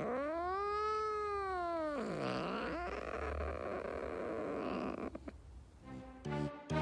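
A Persian cat gives a long drawn-out meow that rises and then falls in pitch over about two seconds. A shorter, lower moan follows, then a few seconds of rough, breathy cat noise. Music comes in near the end.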